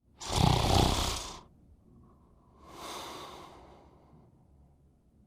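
A person snoring: a loud snore on the in-breath lasting about a second, then a quieter, breathy out-breath about three seconds in.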